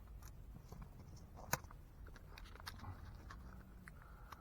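Small handling clicks and taps from fitting 120 roll film and its spool parts into an Ensign medium-format camera, with one sharp click about one and a half seconds in, over a low steady rumble.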